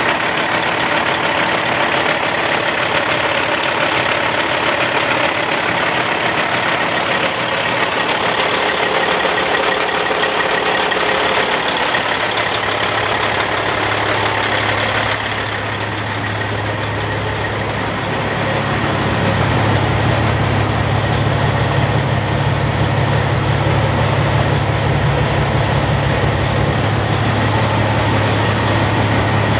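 Caterpillar C15 inline-six diesel engine of a semi truck idling steadily. About halfway through, the loud hiss fades and a steady low drone comes up.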